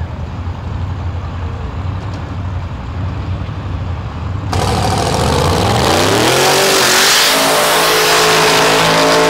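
Drag car burnouts: the engine runs with a low rumble, then about four and a half seconds in it cuts abruptly to a louder one, an engine revving up over about a second and held at high revs over the hiss of spinning tyres.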